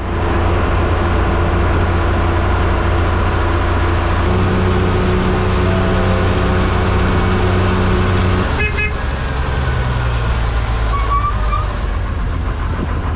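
MSRTC bus under way on the road: a steady engine drone with held tones that step up about four seconds in and drop away a little past the middle. A short horn toot sounds just after that change.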